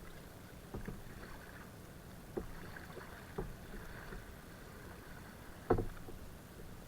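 A kayak on the water: a few scattered light knocks and taps on the boat over a faint steady background, the loudest almost six seconds in.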